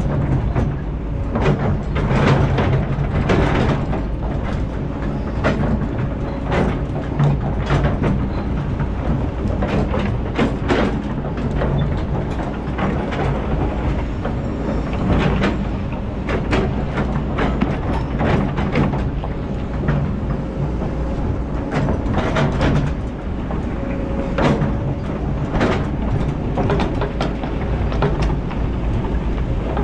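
Kobelco hydraulic excavator working: its diesel engine runs steadily while the bucket digs and scrapes through soil and stones, with irregular knocks and clatter of rock on steel.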